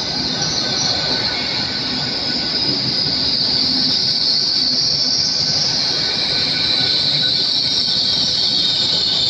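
Great Western Railway Hitachi Class 800 intercity train braking as it slows along the platform. A steady high-pitched brake squeal sits over the rumble of the wheels, dropping slightly in pitch near the end.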